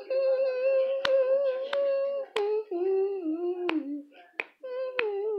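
A person humming a tune without words: one long held note, then a few lower notes stepping down. A few sharp clicks sound over it.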